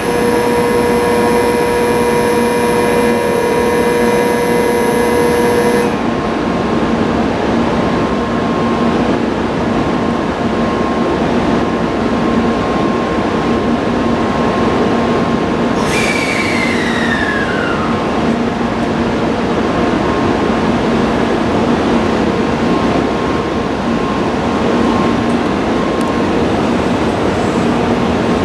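N700-series Shinkansen train humming steadily at the platform as it starts to pull away. A steady ringing tone stops about six seconds in, and about halfway there is a sharp click followed by a falling whine.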